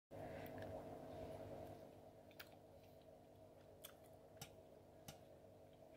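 Near silence: room tone with a faint low hum and a few faint, isolated clicks.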